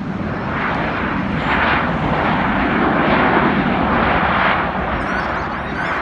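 Boeing 737-700's CFM56-7B jet engines on the landing rollout: a loud rushing jet noise that swells about a second in and eases off near the end.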